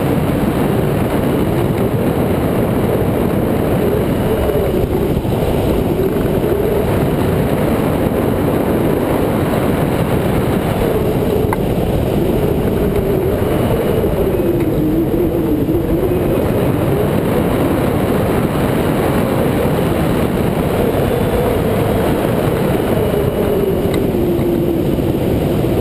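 Steady rush of airflow over a wing-mounted camera in hang glider flight, with a faint hum that wavers slowly up and down in pitch.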